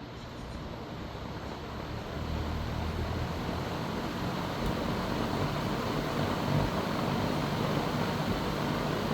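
R&M Hunter 20-inch steel box fan (model FZ20) switched on. Its motor and blades spin up, so the rush of air grows louder over the first few seconds and then runs steadily with a low hum.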